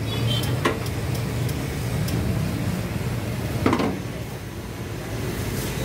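Busy street ambience: a steady low rumble of passing traffic, with a few short sharp clicks and a louder clatter a little before four seconds in.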